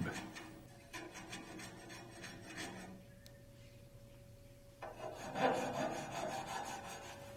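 Hand file rasping over the metal square tube of a RotorWay helicopter airframe, deburring it near the bushings. The strokes come in two bouts with a short pause between them.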